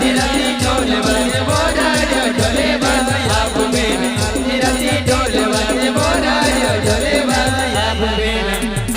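Adivasi timli band music, instrumental: a quick beat of deep drum strokes with a rattle, under a wavering melody line.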